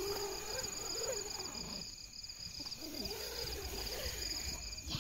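Crickets chirping in a steady, evenly pulsing high trill, with faint low wavering sounds coming and going beneath it.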